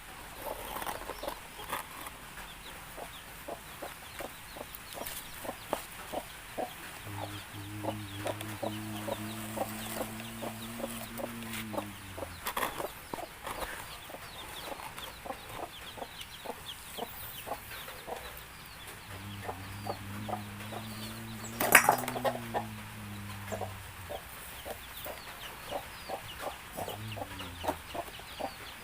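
Chickens clucking again and again, while an engine drones in long spells whose pitch drops as each dies away. A single sharp knock, the loudest sound, comes about three quarters of the way through.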